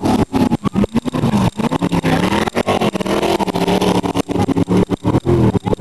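Autocross car engine revving up and down as it races, the pitch rising and falling repeatedly. The recording breaks up with many brief dropouts.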